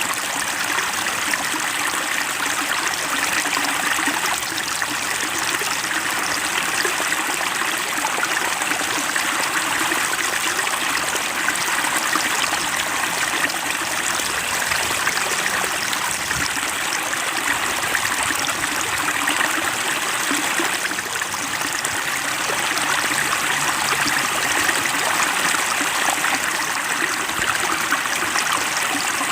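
Water flowing and trickling steadily, an even rushing sound with no breaks.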